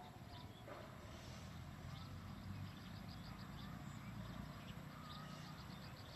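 Rural outdoor ambience: a low rumble with a rapid run of short, high chirps, about five a second, from about two and a half seconds in.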